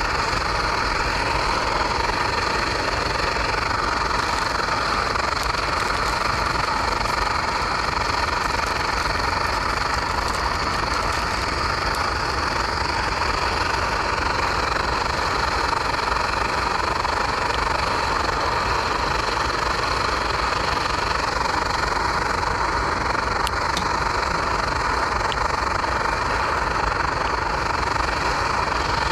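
Portable canister gas stove burning steadily under a pot: a constant, even rush of noise with a low rumble beneath it.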